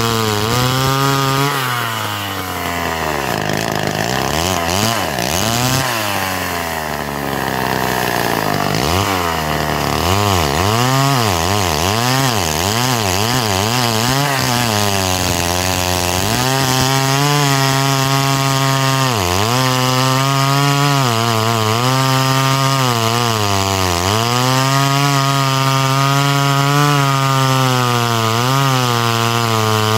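Homelite C-5 two-stroke chainsaw cutting through a thick log, its engine pitch sagging and recovering under load. The pitch swings up and down widely through the first ten seconds, then holds high and steady with a few brief dips.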